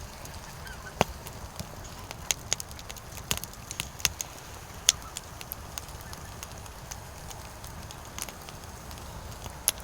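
Firewood logs burning and crackling, with irregular sharp pops over a low steady rumble. The loudest pops come about a second in and near the middle.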